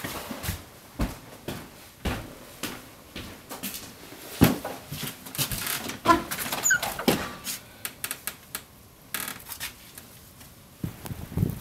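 Someone moving about inside a small wooden hut: irregular knocks and clatters, with a few short creaky squeaks about six seconds in, and a door being opened near the end.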